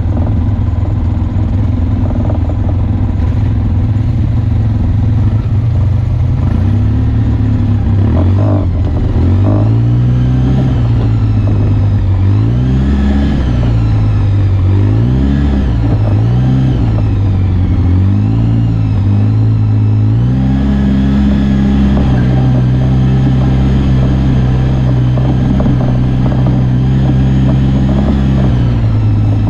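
Off-road side-by-side or quad engine running. It is steady at first, then the revs rise and fall over and over for about ten seconds, then it holds a steady higher pitch.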